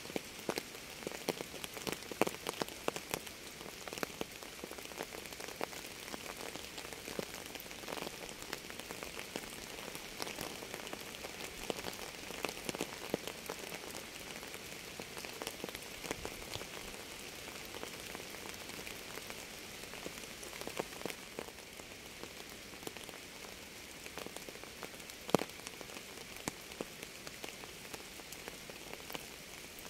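Steady rain falling on a surface: an even hiss with frequent sharp taps of separate drops, one louder tap about 25 seconds in.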